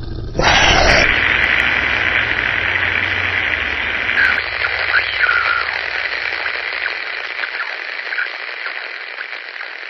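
Electronic static hiss, like a radio between stations, opening with a loud sudden burst. A low rumble under it fades away, and a few short chirps come through the hiss midway.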